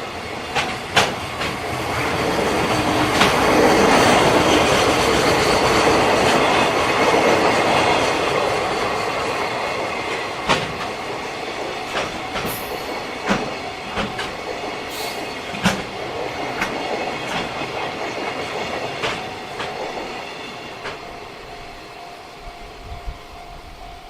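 Electric-locomotive-hauled container freight train passing, its wheels clattering over rail joints. It grows louder over the first few seconds, then slowly fades as the wagons roll by, with scattered sharp clicks.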